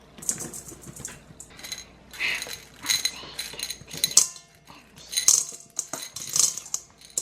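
Irregular sharp clinks and clatters of M&Ms and Butterfinger pieces being dropped into a bowl of ice cream.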